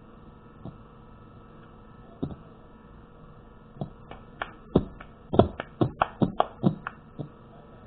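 A series of sharp taps: a few scattered ones at first, then a quick, irregular run of about ten in the second half.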